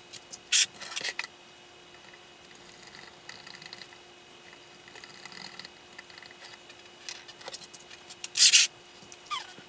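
Small plastic RC truck suspension parts and hand tools being handled and worked: scattered clicks, rubbing and short scrapes, with a louder rasping scrape near the end.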